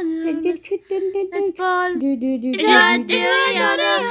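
A child singing an Arabic children's song over backing music, with held notes; the sound becomes fuller and louder about two and a half seconds in.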